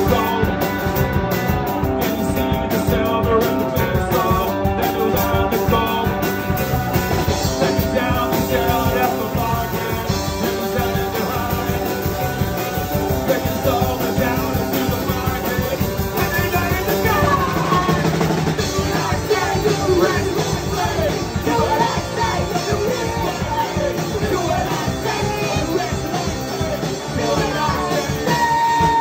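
Live rock band playing a song: electric guitar, electric bass and drum kit, with a man singing.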